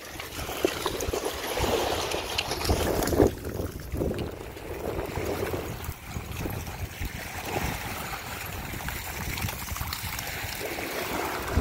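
Dogs running and splashing through shallow seawater at the water's edge: irregular splashing of paws in the water.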